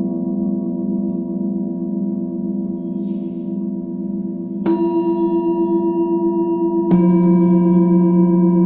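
Struck metal sound-healing instruments ringing on in long sustained tones with a slow pulsing warble. A fresh strike about halfway through and another about two seconds later each add new ringing tones.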